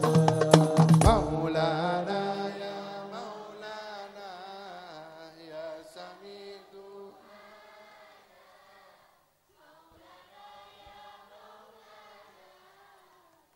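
Male voices singing sholawat, an Islamic devotional chant, over drum strokes that stop about a second in; the singing then fades away to near silence.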